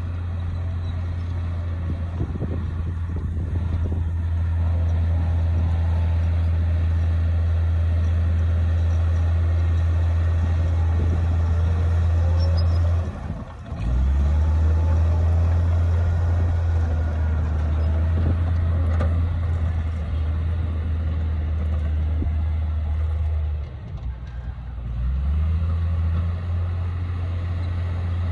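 Komatsu D58P bulldozer's diesel engine running under load, a steady low drone. It dips briefly about halfway through and again near the end, each time picking back up with a short rise in pitch.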